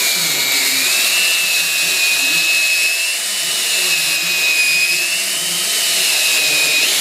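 Cordless drill on low speed spinning a Blue Monster pipe-cleaning brush against copper pipe, scrubbing it clean for soldering. A steady motor whine over a scouring hiss, with the pitch stepping up right at the end.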